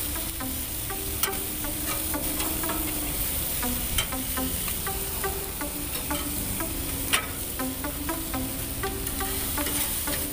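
Chicken drumsticks sizzling on a barbecue grill grate: a steady hiss with many sharp crackles and pops as the fat renders, one pop louder than the rest about seven seconds in.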